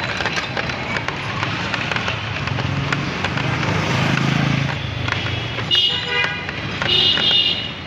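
Busy street traffic heard from a moving rickshaw: a passing vehicle's engine hum swells and fades through the middle, then a vehicle horn honks twice near the end.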